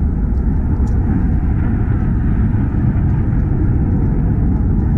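Fighter jet engine noise: a loud, steady low rumble with a faint steady hum running through it.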